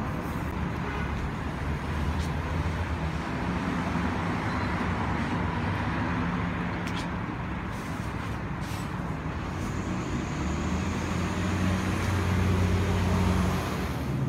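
City street traffic: steady road noise with a heavy vehicle's engine running close by, its low hum strongest in the second half.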